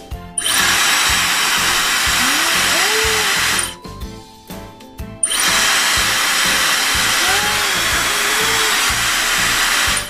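Dyson Supersonic hair dryer with its diffuser attached, blowing: a steady rush of air with a high whine, run for about three seconds, switched off briefly, then switched on again about five seconds in. Each start comes with a brief high tone.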